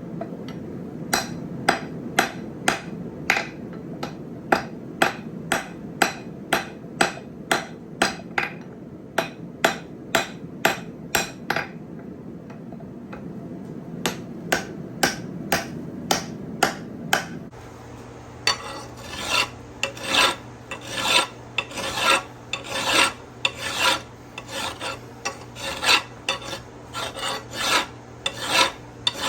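A hand file worked back and forth on steel in steady strokes, about two a second, with a short pause near the middle. About two-thirds of the way through the strokes turn coarser and a low steady hum comes in.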